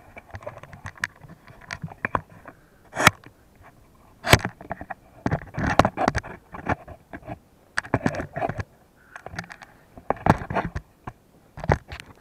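Irregular knocks, scrapes and camera-handling bumps from climbing an aluminium ladder onto a tiled roof with the camera held in one hand.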